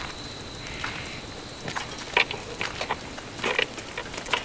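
Irregular rustles and light clicks of people walking through forest undergrowth in armour and gear, with two louder knocks about two and three and a half seconds in, over a faint steady outdoor hiss.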